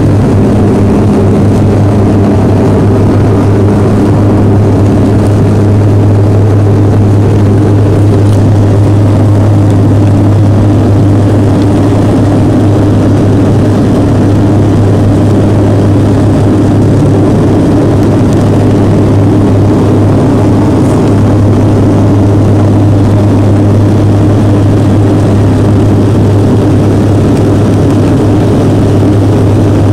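Bombardier Q400 (Dash 8-400) cabin noise during takeoff climb: the Pratt & Whitney PW150A turboprops and six-blade propellers drone steadily at climb power. The drone is a strong, even low hum with a few higher tones above it, heard from inside the cabin.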